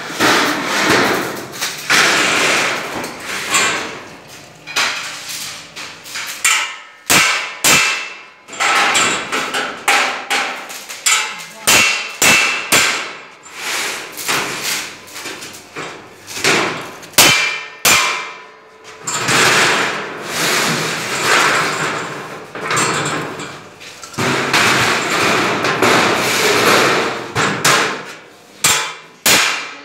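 Hand hammer striking the edge of a sheet-steel cot panel held in a spring clamp: repeated metal-on-metal blows, some single and some in quick runs, each with a short ringing clang.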